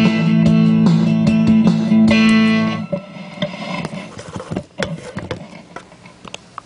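Electric guitar played with a pick over a held low chord, stopping abruptly about three seconds in. After that come scattered clicks and knocks of the camera being handled.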